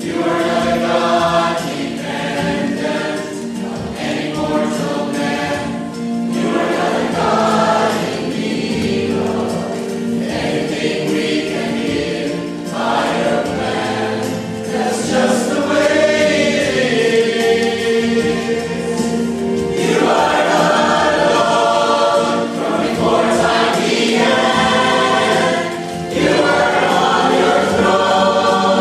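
Mixed church choir of men's and women's voices singing a hymn in sustained, full harmony, with a short break in the phrase near the end.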